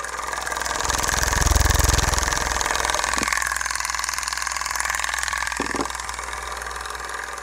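CTI Cryogenics cryoengine, the DC-motor-driven compressor of a split Stirling-cycle cryocooler, running on about 18 volts: a steady fast mechanical hum with rapid clicking. It swells about a second and a half in, then settles.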